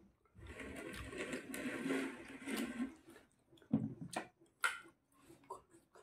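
Close-up wet chewing and lip smacking on a mouthful of food, with a few sharp clicks of the mouth about four seconds in.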